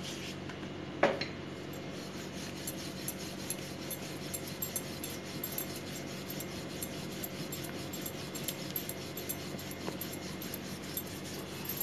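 Rolling pin rolling out floured dough on a marble counter: faint rubbing with light clicks, and one sharper knock about a second in.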